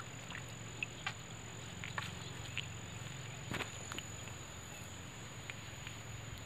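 Crickets chirring as one faint, steady, high-pitched tone, with a few scattered light clicks.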